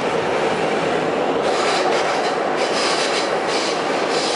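R68 subway car running at speed through a tunnel: a steady loud rumble of wheels on rail, heard from inside the car. From about a second and a half in, high wheel squeal comes and goes over the rumble.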